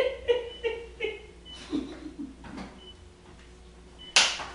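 Faint voices murmuring briefly, then about four seconds in a single sharp knock, the loudest sound here, dying away quickly.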